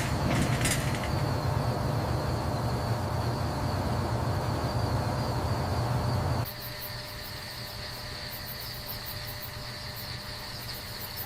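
Steady hiss and low hum of night-time background noise, stepping down in level about six and a half seconds in. After the drop, faint, high, evenly pulsing insect chirps sit over the hiss.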